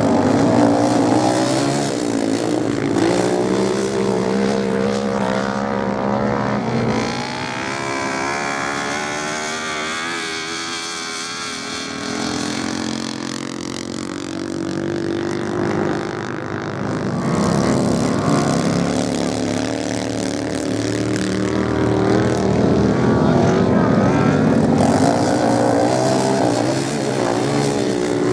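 Several racing motorcycle engines revving up and down as the bikes pass. The sound dips a little about a third of the way in, then swells again as more bikes come close.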